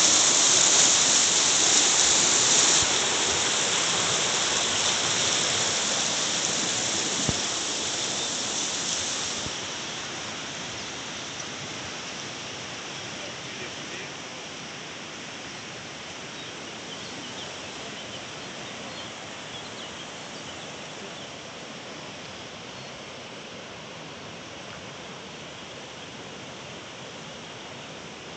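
Rushing water of a rocky mountain river, a steady noise that is loud at first and fades over the first ten seconds to a faint hiss.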